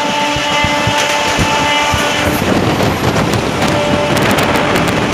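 A train horn holds one long steady note that stops about two and a half seconds in, over the constant rumble and rattle of a train. A fainter horn note comes back near the end.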